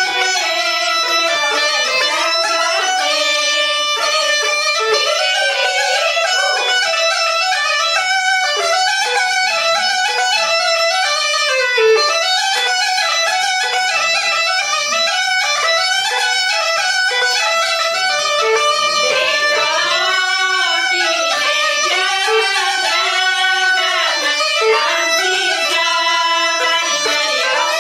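Three women singing a Bulgarian folk song together.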